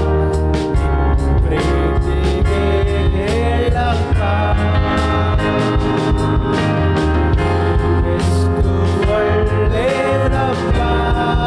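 Kannada Christian worship song: a voice singing held, gliding lines over a band with a steady bass and drum beat.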